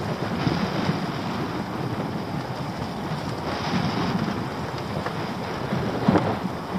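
Wind buffeting the microphone over the wash of sea water around a small open boat, with a brief knock near the end.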